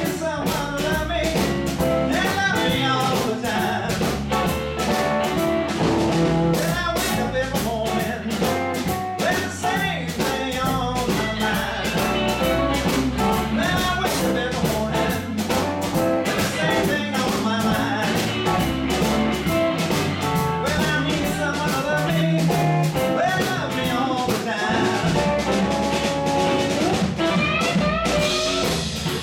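Live blues band playing: two electric guitars, electric bass and drum kit, with gliding, bent guitar notes over a steady drum beat.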